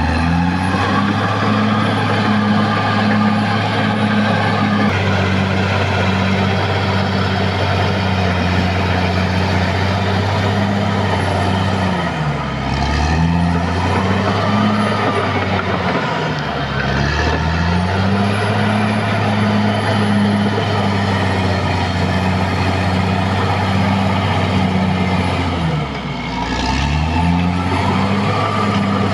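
Caterpillar D6R XL bulldozer's diesel engine running hard at high revs, with a thin high whine over it. Its speed drops sharply and picks back up three times: about twelve seconds in, about sixteen seconds in, and near the end.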